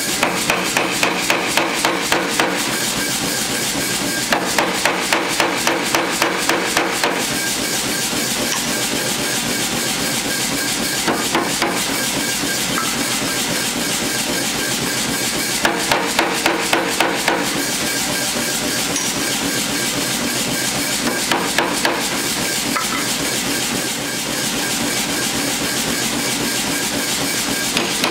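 Power hammer striking red-hot high-carbon steel in short runs of rapid blows, about four a second, with pauses between runs. The hammer's steady running noise continues under and between the blows.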